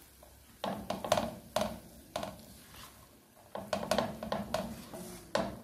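Wooden spatula knocking and scraping against a nonstick frying pan while fried rice is stirred and turned, in uneven bursts of clatter: a few strokes early, one near two seconds in, a quick run around four seconds and a last knock near the end.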